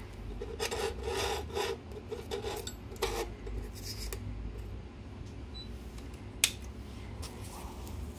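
A NovelLife 24 V DC mini table saw running with a steady hum while its small blade cuts through a green circuit board in several short bursts over the first three seconds. A single sharp click comes about six and a half seconds in.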